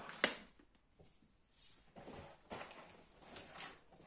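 Groceries being handled and set down on a table: a sharp knock about a quarter second in, then soft rustling and handling of packaging.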